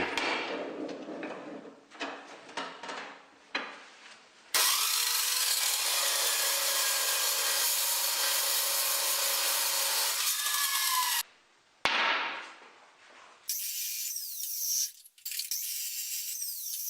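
Low-speed metal-cutting chop saw with a carbide-tipped blade cutting flat steel bar into short pieces: one loud, steady cut lasting about six seconds, with quieter knocks and the blade's higher, falling run-down sound before and after.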